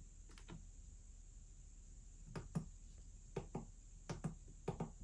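Light taps and clicks of fingers pressing the rubber pads and buttons of an Akai APC Mini MK2 and a Wolfmix W1 MK2 controller: about eight soft taps, several in quick pairs, mostly in the second half.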